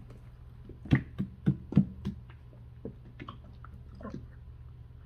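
A drink being shaken in its cup: a quick run of five knocks about a third of a second apart, starting about a second in, then a few fainter clicks.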